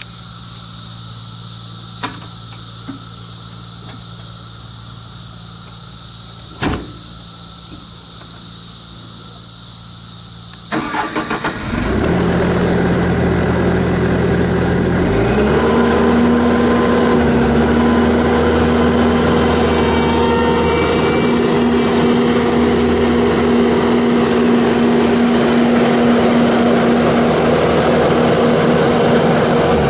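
Bobcat T770 skid steer's diesel engine idling, then throttled up about 11 seconds in to a much louder run. About 15 seconds in the pitch climbs and settles into a steady high-speed whine as the forestry mulcher head spins up to working speed.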